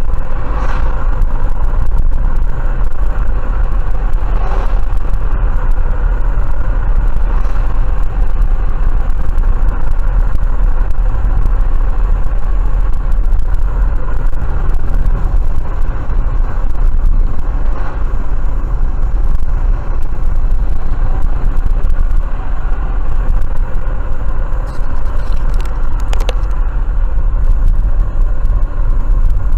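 Steady low rumble of a car's engine and tyres on the road, heard inside the cabin while driving, with a short tick near the end.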